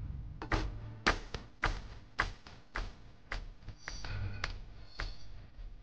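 Footsteps of a person walking at an even pace, a sharp tap about every half second, over a faint low rumble.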